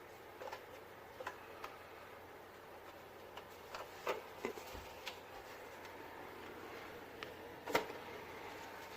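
Several light, irregular clicks and taps over a faint steady hiss, the loudest click near the end.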